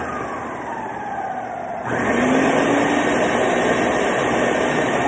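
Ninja countertop blender motor running, whirring through crepe batter: its whine sinks in pitch, then the motor jumps abruptly to a louder, higher speed about two seconds in.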